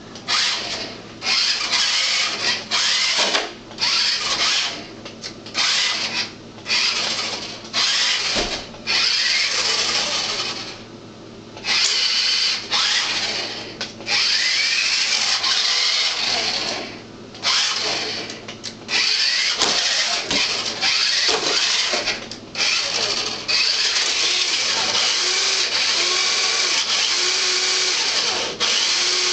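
Small electric motor of a radio-controlled toy car whining. For the first ten seconds or so it starts and stops in many short bursts, then it runs in longer stretches and is almost continuous near the end.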